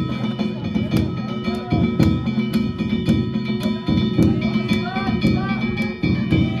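Danjiri festival-float narimono: a large drum and hand-struck gongs beating a steady rhythm of about two strikes a second, the gongs ringing on between the strokes.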